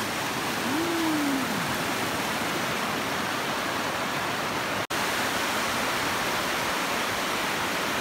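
Awamata Falls, a steady rush of white water sliding and churning down a wide cascade of sloping rock slabs. The sound cuts out for an instant just before five seconds in.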